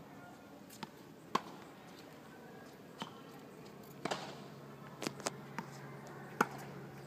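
Tennis ball being hit back and forth with rackets and bouncing on a hard court during a rally: a series of sharp pops, the loudest about one and a half seconds in and again near the end.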